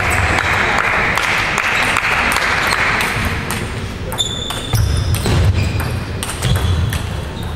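Table tennis ball clicking in quick, irregular hits off bats, table and floor, over a steady background hiss in the first half. Sharper, ringing clicks and some low thuds follow from about halfway through.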